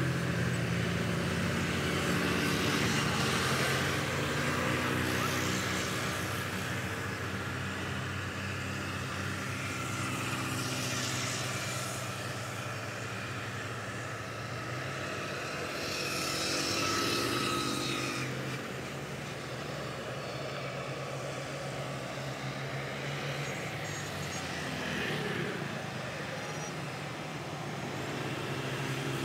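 Boeing 777-300ER's twin GE90 jet engines running at taxi idle: a steady low drone under a broad hiss, swelling a couple of times along the way.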